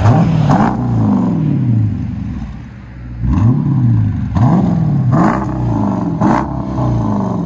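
Dodge Durango's 5.7-litre Hemi V8, with Vibrant mid resonators, an X-pipe, the rear resonators deleted and 5-inch tips, revved in about five quick throttle blips. Each blip rises sharply and falls back toward idle, with a short settle at idle between the first blip and the rest.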